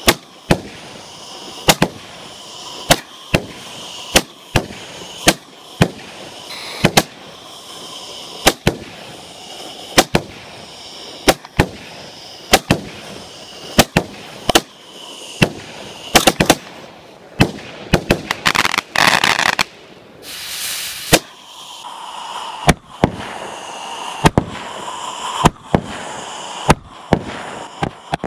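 Orion 'Predator' 19-shot firework cake firing: a steady run of sharp bangs as the shots launch and burst, coming every half second to second and a half, with a few seconds of dense crackling hiss about two-thirds of the way through.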